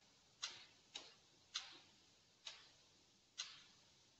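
Five faint, short clicks of a computer mouse button at uneven intervals as letters are drawn stroke by stroke with the mouse.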